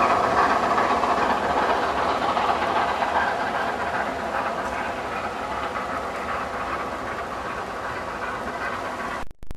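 Steam-hauled express train, LNER A4 Pacific No. 4464 Bittern and its carriages, running away into the distance: a steady rail rumble that slowly fades, then cuts off abruptly near the end.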